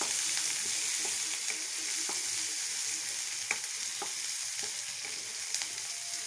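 Sliced onions and curry leaves sizzling in hot oil in a metal kadai as they are stirred with a wooden spatula, which knocks and scrapes against the pan in irregular light clicks. The onions are being sautéed until soft.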